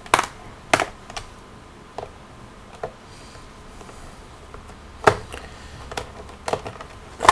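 Scattered sharp clicks and taps as a screwdriver works the captive Phillips screws of a laptop's plastic drive-bay cover, which click as they come undone.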